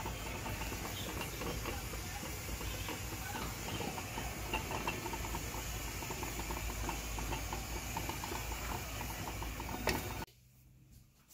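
Silicone spatula stirring thick, heating strawberry jam mixture in an enamelled cast-iron Dutch oven: many small wet ticks and pops over a steady hiss and low hum. It stops abruptly about ten seconds in.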